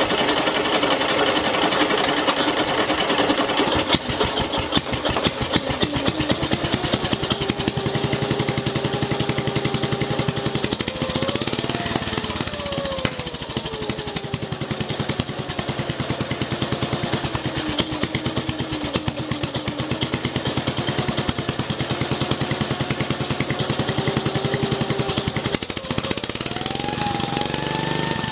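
Old Sturmey-Archer dry-sump engine from a Howard Junior rotary tiller running hot and loud, its speed rising and falling about 11 seconds in and again near the end. The engine has been rebored and re-ringed without a new piston, leaving about 2 mm of piston slap.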